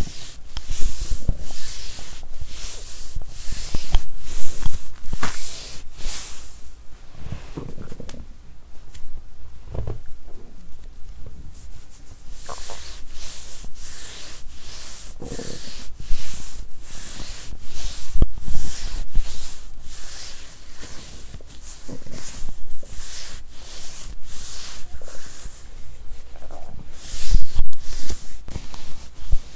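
Rubbing and scraping of skin and fingers against a lavalier microphone held to a bare belly, in many short repeated strokes, with a few stomach gurgles underneath.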